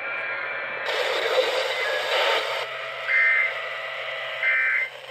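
Emergency Alert System digital data bursts over a radio broadcast: after a few seconds of radio hiss come two short, buzzy, warbling bursts about a second and a half apart.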